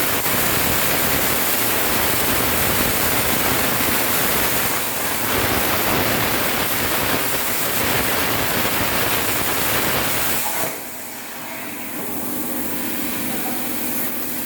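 CNC plasma cutter's torch arc cutting metal, a loud steady hiss that cuts off suddenly about ten seconds in, leaving a quieter steady machine hum.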